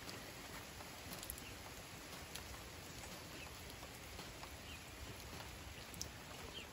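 Light rain falling on garden plants and a small pond: a soft, even hiss with scattered drops ticking.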